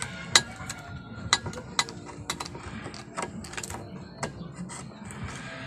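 Kitchen knife being stabbed and levered into the tin lid of a can, making a string of sharp, irregular metallic clicks and scrapes, the loudest near the start.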